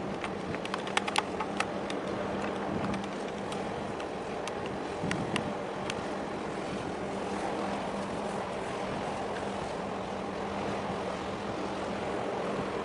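A container ship passing close by: a steady low hum over wind and water noise. A few sharp clicks come about a second in and again around five seconds.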